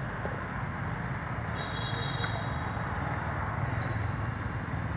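Steady outdoor background noise: a low, fluttering rumble with a hiss over it. A faint high tone comes in briefly about a second and a half in.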